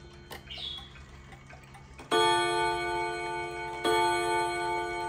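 Japanese Seikosha spring-driven wall clock striking the hour on its two crossed nickel-silver gong rods: after a few faint clicks, two loud ringing strokes about a second and three-quarters apart, each left to ring on.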